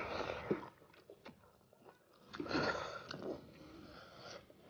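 Mouthfuls of rice and fried fish being chewed by people eating with their hands, in two short bursts of eating noise about two seconds apart, with a few small clicks between.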